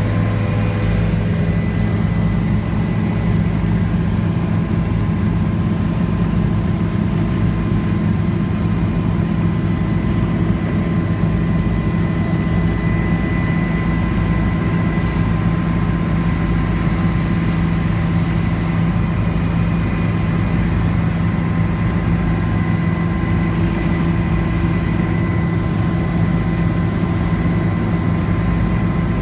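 Helicopter in steady flight heard from inside the cabin: a constant low engine and rotor hum with a thin, steady high whine over it, unchanging throughout.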